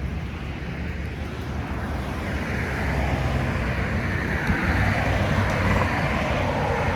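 Road traffic with a low rumble, as a vehicle draws near, growing louder from about two seconds in.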